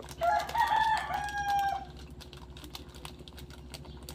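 A rooster crowing once: one long call that rises and then holds for under two seconds.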